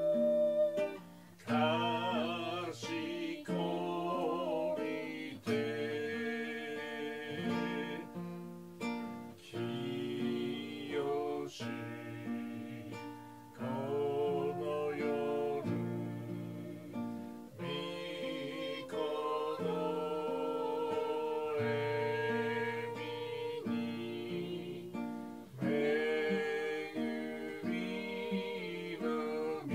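A hymn sung by two voices, with sustained notes and vibrato, over an instrumental accompaniment.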